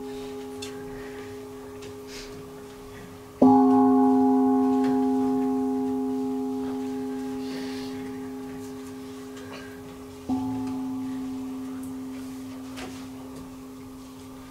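A singing bowl struck twice, about three seconds in and again about seven seconds later (the second stroke softer), each stroke ringing on in a long fading tone; the ring of an earlier stroke is still dying away as it begins.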